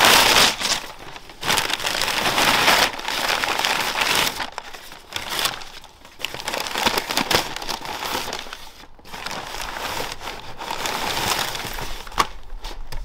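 Brown kraft packing paper being pulled out of a cardboard bike box and crumpled, crinkling and rustling in uneven bursts.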